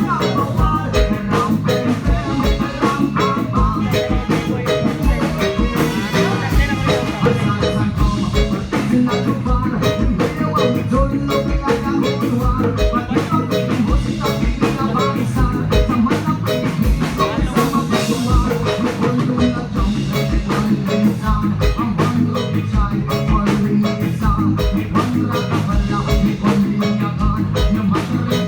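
Music with a steady, driving drum beat under layered melodic instrument lines.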